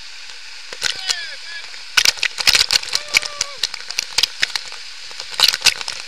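Waterfall pouring over and around a camera at close range: a steady hiss of falling water with many sharp cracks and splatters as the water strikes the camera. The splatters are densest from about two seconds in until near the end.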